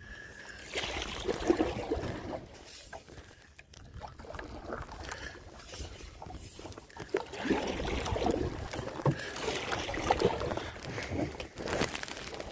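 Paddle strokes with a wooden canoe paddle, the blade splashing through the water and water sloshing against the hull of a small outrigger canoe, in uneven bursts. A brief rubbing and clicking of a hand against the microphone near the end.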